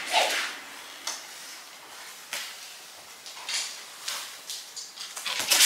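Sounds of iaido sword practice: a series of short swishes and rustles as the sword is swung and the keikogi and hakama move, several separate bursts with the loudest near the end.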